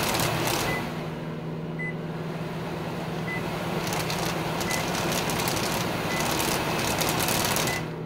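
Kenmore Elite over-the-range microwave's vent fan blowing hard as it is stepped through its speeds, with a short control-panel beep every second or so. Under the air noise runs the steady hum of the microwave heating a cup of water.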